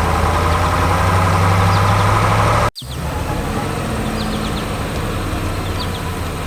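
Heavy machinery engine running steadily at a low idle. The sound cuts out for an instant a little under halfway through and comes back slightly quieter, with faint short bird chirps over it.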